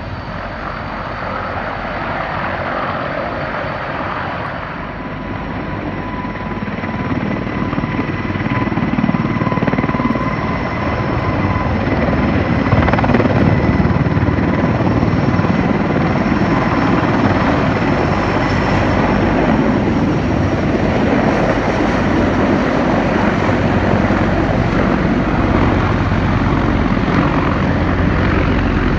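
Mil Mi-26 heavy-lift helicopter running at close range: a steady rumble of rotor noise with a thin, steady whine from its two turboshaft engines. It grows louder over the first dozen seconds as the helicopter taxis out and lifts off, then holds steady.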